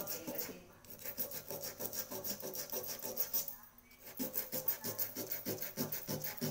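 Sandpaper rubbed by hand over the metal outside of a small cauldron in quick back-and-forth strokes, scuffing the surface for a repair; the strokes pause briefly a little past halfway and then resume.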